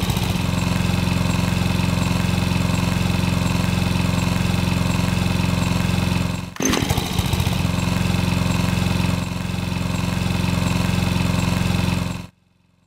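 Steady, motor-like buzzing sound effect from a cursive-handwriting app, in two long stretches with a short break about six and a half seconds in, cutting off near the end.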